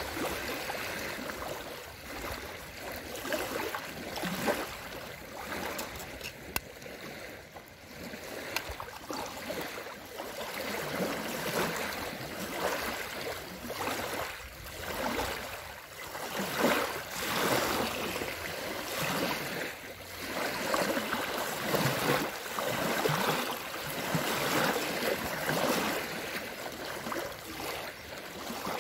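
Small lake waves lapping and splashing onto a paved shore ramp, in irregular swells a second or two apart.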